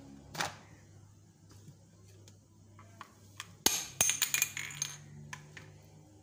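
Handling of a blender jar and its plastic lid: a sharp click about half a second in as the lid comes off, then a quick cluster of clinks and rattles a little after three and a half seconds in.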